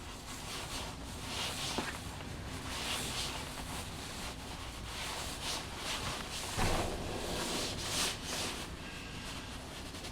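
Hand work on a high-voltage cable with a knife and screwdriver: a series of short scraping strokes about once a second, with a sharp click about two seconds in and a heavier bump a little past the middle.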